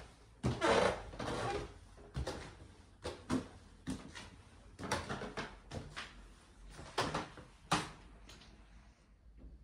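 Footsteps climbing old wooden stairs and then walking on wooden floorboards: irregular knocks and creaks of the boards, about one a second, the loudest and longest about a second in.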